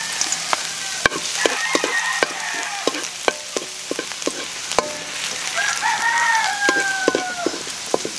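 Minced garlic sizzling in oil in a steel wok, with sharp clicks of the spatula against the pan as it is stirred. A rooster crows for about two seconds past the middle.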